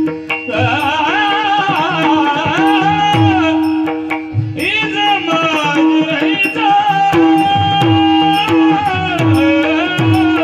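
A devotional abhang sung in two long, ornamented phrases with a wavering pitch, over a held drone and tabla strokes.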